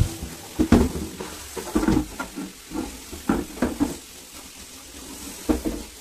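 Clear plastic refrigerator drawer being handled and washed in a kitchen sink: irregular knocks and scrapes of the plastic over a steady hiss.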